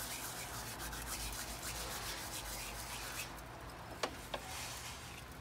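Dried rosemary being crumbled between the fingers and sprinkled over pork ribs: a soft, gritty rustling that thins out after about three seconds, followed by two light clicks.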